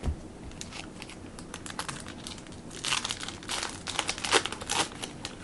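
Plastic trading-card pack wrapper crinkling and tearing as a pack is opened, a run of crackly rustles that gets busier and louder about three seconds in.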